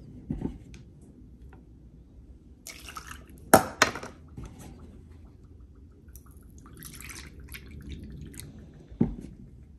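Almond milk poured out of a plastic measuring cup into a plastic container, then two sharp knocks of the cup. Near the end, milk is poured into the measuring cup again, followed by a dull thump.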